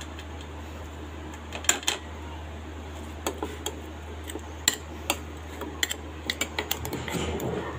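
Steel utensils clinking and scraping against a steel plate and bowl as crushed seeds are tipped out and stirred into minced meat. There are scattered single clicks, then a quicker run of clinks with a brief scrape near the end.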